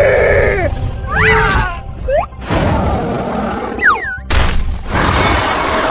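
A loud, edited mix of cinematic creature sound effects: heavy booms and crashes, with several sliding screeches or cries that rise and fall in pitch, cut together abruptly.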